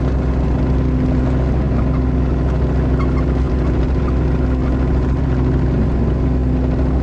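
Kubota KX018-4 mini excavator's three-cylinder diesel engine running steadily at raised throttle, just after the throttle lever has been pushed up.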